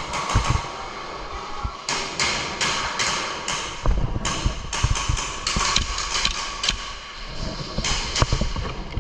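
Heavy, quick breathing through a gas mask, a hissing breath in and out about every half second to a second. Low thumps of footsteps and gear handling run underneath.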